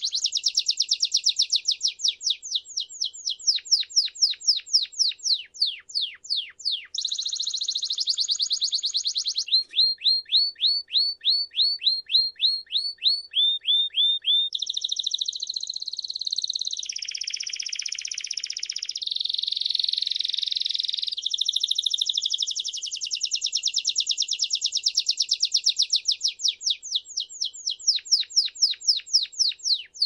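A domestic (Belgian) canary singing a long, unbroken song. It moves between buzzy rolls, runs of quick repeated falling notes, and high trills.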